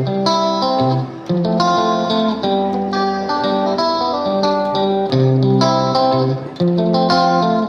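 Background music: a plucked guitar melody over a bass line with a steady beat.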